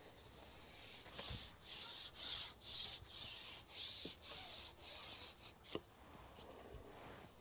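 Carbon fishing pole being shipped back to land a hooked fish: a run of about nine scraping rubs, roughly two a second, as the pole slides back, ending with a light knock.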